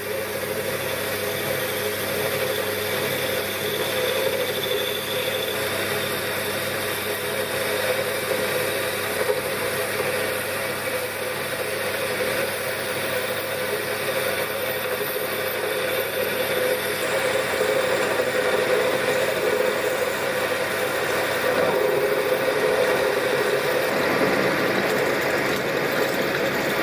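Myford Super 7B lathe running steadily at reduced spindle speed while an inserted-tip parting tool cuts into a steel bar lubricated with cutting fluid: an even machine hum with the noise of the cut over it.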